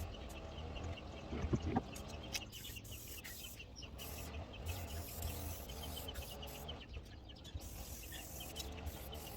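Wood being sanded: irregular scratchy rubbing with scattered clicks over a low steady hum.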